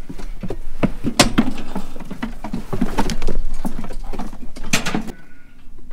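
Quick, irregular clattering and knocking of sheep moving in a metal combi clamp handling crate, with hooves and the crate's gates and sides rattling. It stops about five seconds in.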